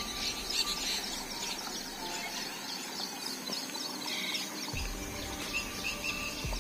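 Many small birds chirping and twittering over a steady outdoor hiss, with a low rumble starting about five seconds in.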